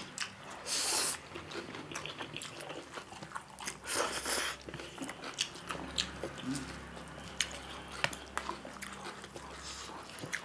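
Close eating sounds: chewing and biting with wet mouth clicks, and two short hissing slurps of spicy instant ramen noodles, about a second in and again about four seconds in.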